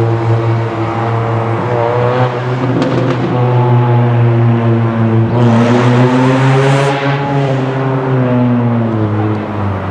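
EMD GP38-series diesel locomotives' 16-cylinder engines working as the freight moves slowly, their pitch rising and falling with the throttle. A hissing rush comes in about five and a half seconds in and fades a second or so later.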